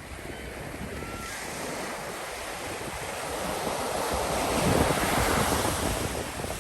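Ocean surf: a wave rushing in, swelling to its loudest about five seconds in and then ebbing away, with some wind on the microphone.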